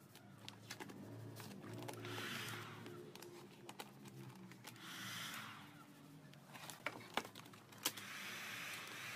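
Vinyl wrap film crinkling and tapping as it is pressed and smoothed down by hand, in small irregular clicks, a few sharper ones about seven to eight seconds in. Short spells of heat-gun airflow hiss come and go, one starting near the end.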